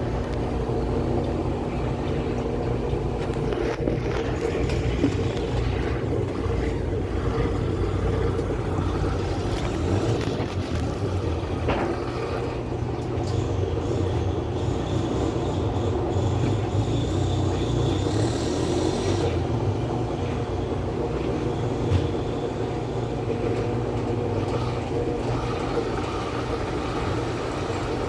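Washing machine running with a steady motor hum and a faint hiss partway through.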